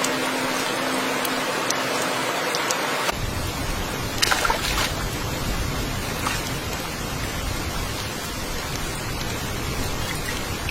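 Steady rain hissing, with a few sharp drip ticks. About three seconds in, the sound changes abruptly and a deeper layer of rain noise joins.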